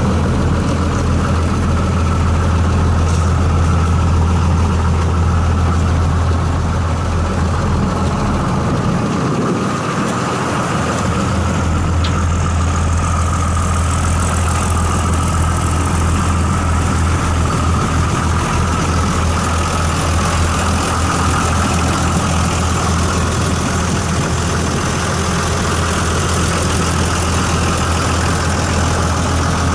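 The John Deere diesel engine of an Orchard Rite Bullet side-mount orchard shaker running steadily with a deep, even hum. A high hiss comes up about twelve seconds in and stays.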